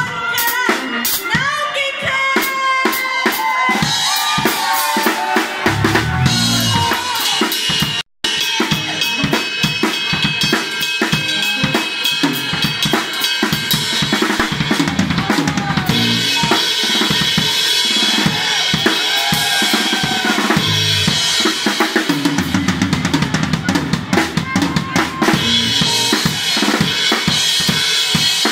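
A live band plays with the drum kit up front: busy bass drum, snare and cymbal strokes over bass guitar and keyboard. The sound drops out completely for a split second about eight seconds in.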